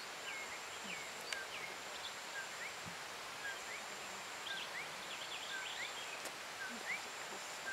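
Outdoor bush ambience: scattered short bird chirps and whistles, busiest near the middle, over a steady high-pitched tone and a soft hiss. A single sharp click about a second in.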